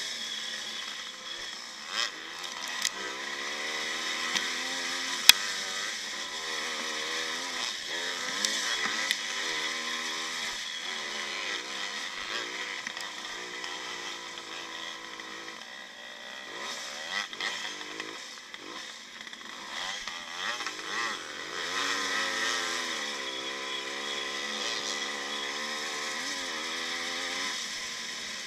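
1955 Maico's two-stroke single-cylinder engine revving up and falling back again and again as it is ridden round a motocross track. A few sharp knocks come through, the loudest about five seconds in.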